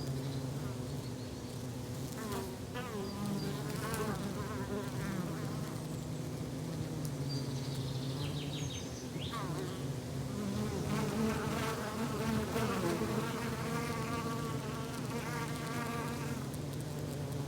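Flying insect buzzing steadily, a low drone with short high chirps and trills over it.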